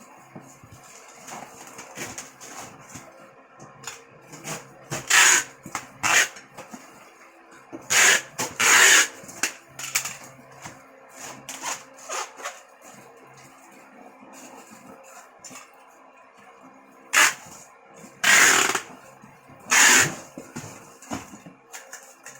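MMA (stick) inverter welder striking its arc in short bursts, each from a fraction of a second to about a second long, around seven times, over a steady low hum.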